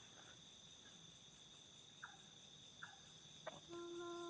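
Faint steady chorus of crickets: a continuous high trill with a few short faint calls about two seconds in. Near the end a single steady low humming note begins and holds.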